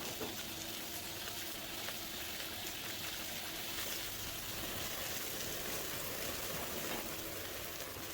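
Coconut oil heating in a wok, giving a steady sizzling hiss with faint scattered crackles.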